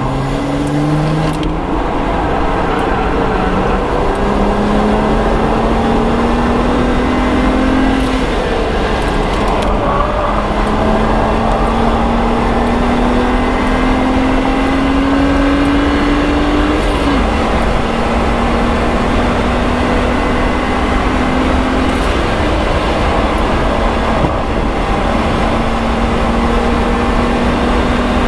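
BMW 135i's N54 twin-turbo inline-six at full throttle on track, heard up close through a microphone under the hood. The engine pitch climbs twice and drops back sharply at upshifts, about 10 and 17 seconds in, then runs at a steadier pitch. Heavy wind and road noise run underneath.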